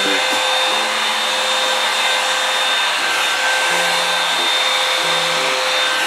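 Revlon One Step hair dryer brush running: a loud, steady rush of blown air with a steady motor whine, cutting off suddenly at the end.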